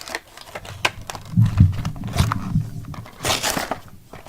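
Toy packaging being handled and opened by hand: scattered clicks and taps, low bumps near the middle, and a short rustle of cardboard or plastic a little after three seconds in.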